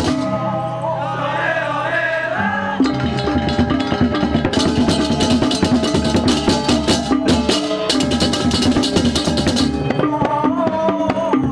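Balinese baleganjur gamelan playing: gongs and tuned metal percussion ringing over drums, with rapid clashing cymbals. For about the first three seconds a wavering melodic line sounds over a low held tone, then the drums and fast cymbal clashes come in and stay dense.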